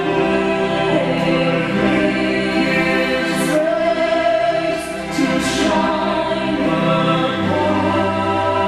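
Sacred vocal music: a small group of singers performing a hymn-like song, with long held notes.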